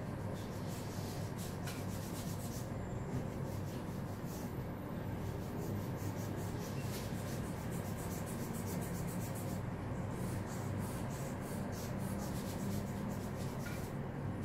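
Steady room noise with soft rubbing and many faint light clicks.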